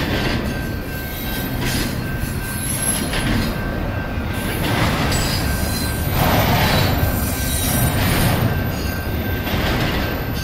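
Union Pacific double-stack intermodal container cars rolling past at speed: a steady loud rumble of steel wheels on rail that surges every second or two, with thin high squealing tones at times.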